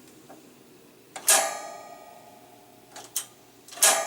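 Piezo igniter of a Mr. Heater Big Buddy propane heater clicking three times while the pilot is being lit. Each sharp snap is followed by a brief metallic ring.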